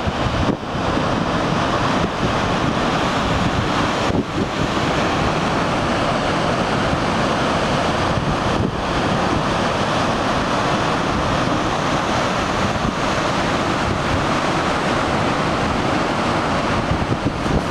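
Atlantic surf breaking and foaming over rocks: a steady rush of white water from small waves.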